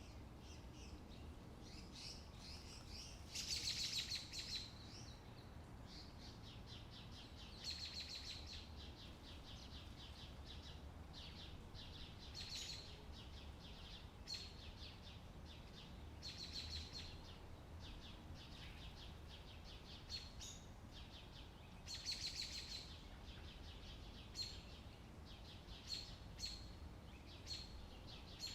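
Small birds chirping, with short high chirps and several rapid trills, the loudest trills about 4 seconds in and again about 22 seconds in. A faint steady low rumble runs underneath.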